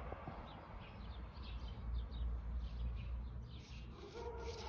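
Small birds chirping repeatedly over a steady low rumble, with a brief pitched call near the end.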